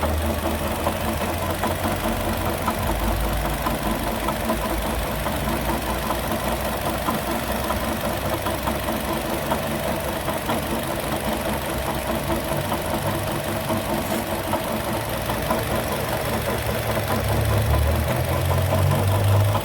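Chevrolet car engine idling with a rapid knocking, the 'golpeteo' that comes back when the poly-V accessory belt is on, which the mechanic takes for a failing water pump. It gets slightly louder near the end.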